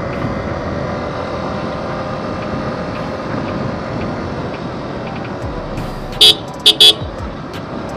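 Yamaha R15M's 155 cc single-cylinder engine running steadily, with wind noise, while cruising at about 50 km/h. About six seconds in, a horn sounds three short, loud toots close by.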